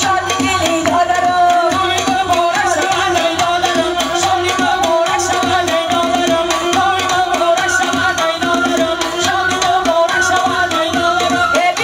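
Amplified live Tajik party music: a woman singing over a doira frame-drum beat, with a melody from flute and electronic keyboard.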